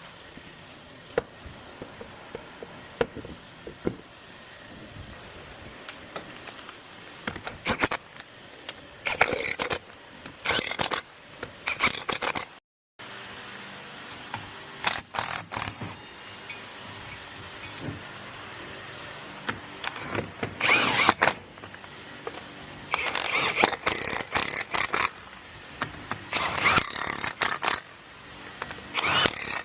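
Mechanic's metal tools at work: scattered clicks and clinks, then repeated bursts of rapid rattling, each lasting a second or two.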